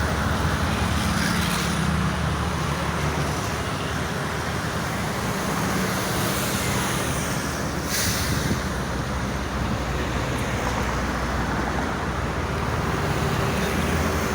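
Steady toll-road traffic noise from passing vehicles' tyres and engines, with a low engine drone strongest in the first few seconds and a brief sharp sound about eight seconds in.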